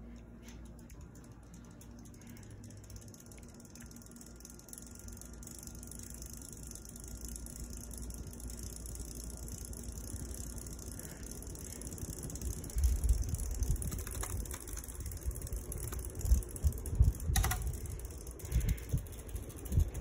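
Harbor Breeze ceiling fan running with its blades spinning: a steady low motor hum and rushing air. In the second half the low rush grows louder and comes in irregular gusts and thumps, with one sharp click a few seconds before the end.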